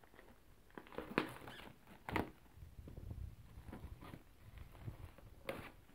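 Clear plastic shrink-wrap on a hardback book being picked at and peeled by hand: crinkling and rustling in short bursts, the sharpest about one and two seconds in and again near the end.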